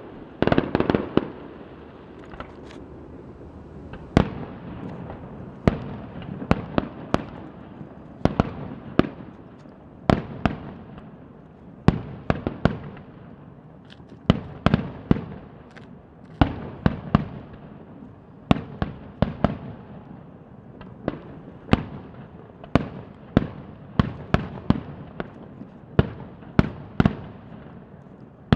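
Aerial fireworks bursting one after another: sharp bangs about once a second, sometimes in quick clusters, each trailing off in an echo.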